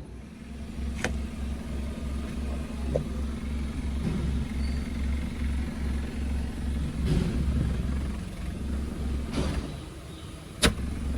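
Hyundai Creta petrol engine idling with a low, even throb at the exhaust, the damaged silencer sealed with butyl aluminium tape so the leak noise is gone. A few sharp clicks, the loudest near the end.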